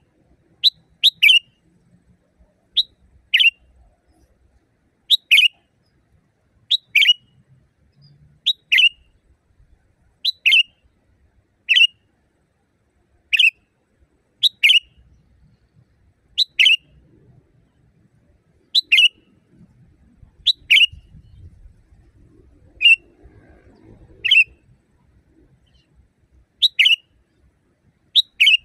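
Sooty-headed bulbul calling: short, loud two-note calls, a quick higher note followed by a falling note, repeated about every one and a half to two seconds.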